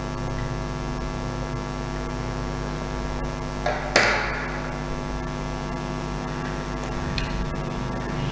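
Steady electrical hum with many overtones throughout. About four seconds in, a sharp plastic click from the toy dart revolver being handled as its cylinder is swung open, with a softer click just before it and a faint one near the end.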